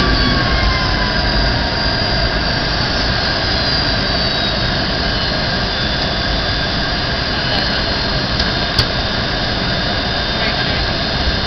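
Jet airliner's engines and airflow heard inside the cabin on approach: a steady rushing drone with thin whining tones on top, one whine sliding down slightly in pitch in the first couple of seconds. A single faint click near the end.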